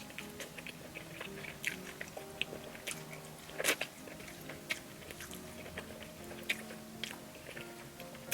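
A person biting and chewing pizza close to the microphone, a run of short crisp crunches and mouth clicks, the loudest about three and a half seconds in.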